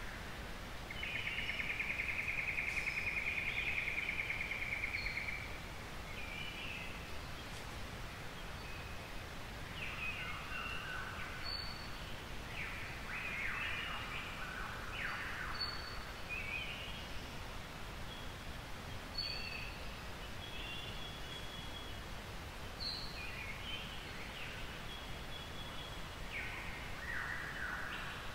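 Early-morning forest birdsong: several birds calling, the loudest a rapid trill held for about four seconds near the start, followed by scattered shorter calls and brief high notes every few seconds, over a steady low background noise.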